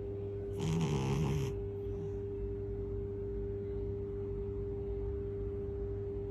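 A cat snoring: one raspy breath lasting about a second, starting about half a second in, over a steady low hum.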